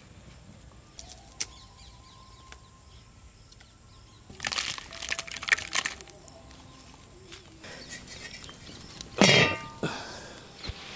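Dry sticks and split firewood being handled and laid around a clay pot in a charcoal pit fire, rustling and knocking from about four to six seconds in, with a louder brief sound about nine seconds in.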